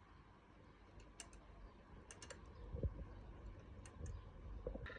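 Faint scattered clicks and light taps, with one dull thump a little past the middle.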